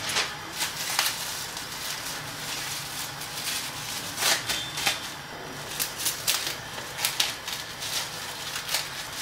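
Scissors snipping the stems off fresh grape leaves, then plastic cling film crinkling as bundles of the leaves are wrapped in it: scattered short crackles and rustles.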